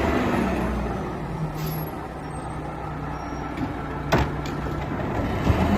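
Truck engine running steadily, a low rumble and hum that starts and stops abruptly like a dubbed sound effect. There is one short sharp click about four seconds in.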